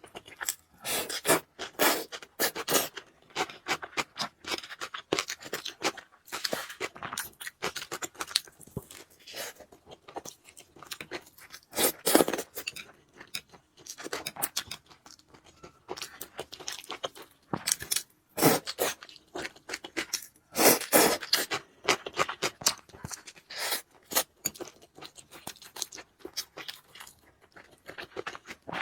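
Close-up eating sounds of a person chewing spicy fried noodles: wet chewing and crunching with scraping, coming in irregular clusters.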